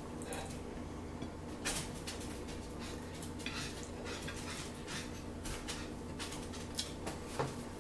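Cutlery clinking and tapping against dishes in a few scattered light taps, over a steady low hum.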